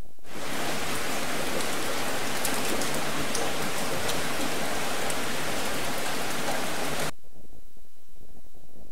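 Recorded rain sound effect playing: a steady hiss of rain with faint crackling drops. It starts abruptly and is cut off suddenly about seven seconds in.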